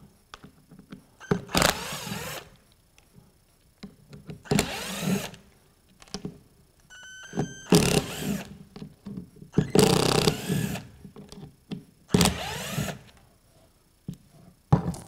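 Cordless impact driver backing screws out of a plastic tool housing in five short bursts of about a second each, its motor whine rising and falling, with small clicks of handling between the bursts.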